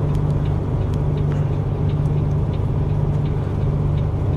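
Steady low drone of a moving vehicle's engine and road noise, heard inside the cabin, with faint scattered ticks.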